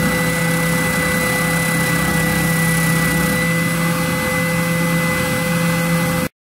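Benchtop oscillating spindle sander running with a steady mechanical hum as the edges of a hardwood cutting board are sanded against its drum; the sound cuts off suddenly near the end.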